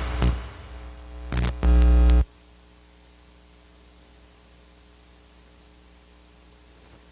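Electronic music with heavy bass, a few short loud hits, cutting off suddenly about two seconds in. After that only a faint steady hiss and hum.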